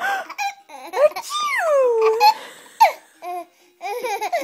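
A baby laughing in a string of short, high-pitched squeals and giggles, one drawn out and falling in pitch midway.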